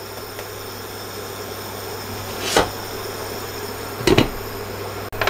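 A glass pan lid set down onto a nonstick frying pan, a short clatter of two or three knocks about four seconds in, after a single sharp knock about halfway, over a steady low hum.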